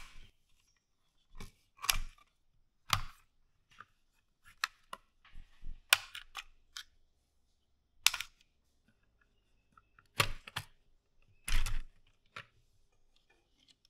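Plastic clicks, snaps and knocks from a 3D-printed toy gun being taken apart by hand: a cover pried off with a small screwdriver and snap-fit halves unclipped. About a dozen short, sharp clicks come at uneven intervals, with quiet between them.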